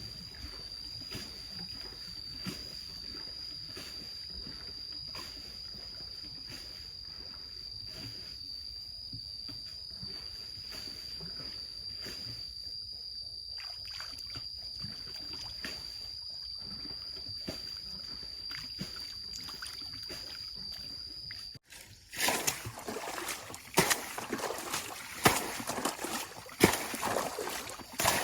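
A steady high-pitched whine over a low, even background, then after a sudden cut about 22 seconds in, loud irregular water splashing and sloshing with many sharp strokes.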